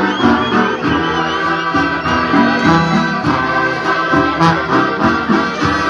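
Marching band playing a tune, brass over drums with a steady beat.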